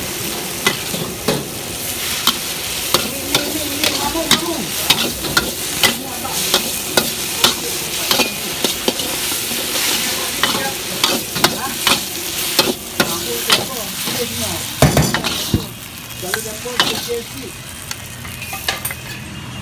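Char koay teow noodles sizzling in a hot wok while metal spatulas scrape and clank against the pan in quick, irregular strokes, about two a second. About 15 seconds in comes a heavier knock, after which the sizzling is quieter.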